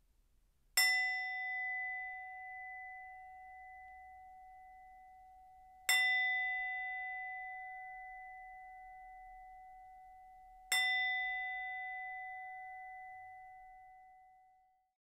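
A bell struck three times, about five seconds apart. Each strike rings a clear tone that slowly dies away, and the last one fades out completely.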